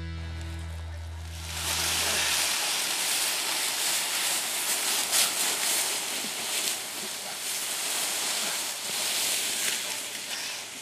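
A person being dragged on their back across dry leaf litter, with the dragger's footsteps in the leaves: a steady rustling and crackling of leaves that starts about a second and a half in, as the last notes of music die away.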